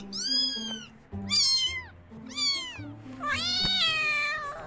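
A cat meowing four times in a row, high-pitched calls that glide down in pitch, the last one the longest, over background music.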